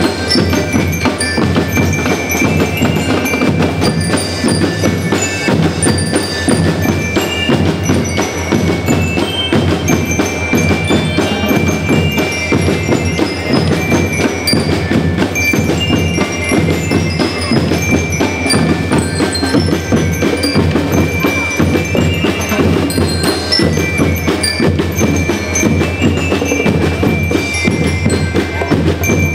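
School marching rhythm band playing: bell lyres ring out a melody over a steady beat of snare and bass drums.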